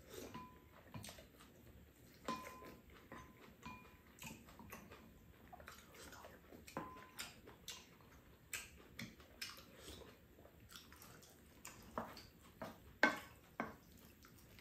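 Eating sounds at a table: wooden chopsticks and spoons tapping and scraping on ceramic bowls and a frying pan of fried rice, with chewing. Short, scattered clicks, a few with a brief ring from a bowl, the loudest about a second before the end.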